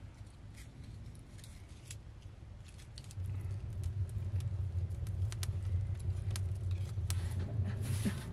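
Wood fire burning in a clay tandoor oven: a low steady roar with scattered crackles and pops. The roar grows louder about three seconds in.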